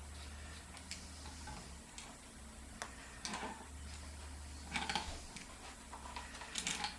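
Irregular light metallic clicks and taps from work on a VW generator's parts and shaft threads, with a few louder knocks near the middle and the end, over a low steady hum.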